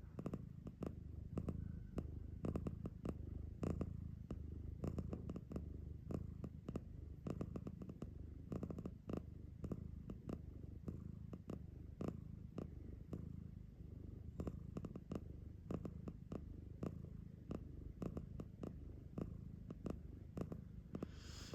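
Domestic cat purring steadily, a continuous low purr with scattered faint clicks over it.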